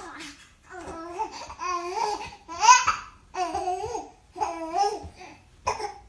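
A young infant babbling and cooing in a string of about six short high-pitched calls, each rising and falling in pitch, about one a second.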